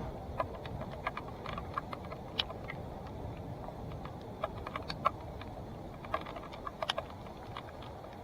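Mountain bike being ridden over a rough trail: a steady rumble of tyres and wind with irregular sharp clicks and rattles from the bike, the loudest about five seconds in.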